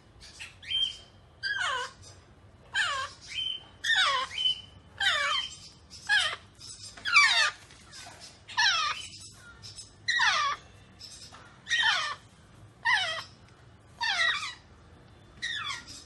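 Young African grey parrot chick calling over and over, about one short falling call a second.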